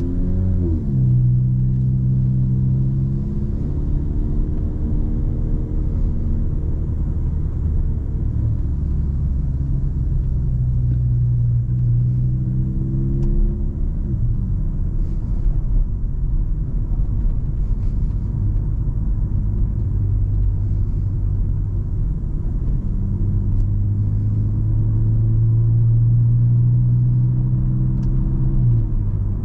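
Car engine running under way, with steady low road rumble. The engine note drops in pitch three times: just after the start, about halfway through and near the end.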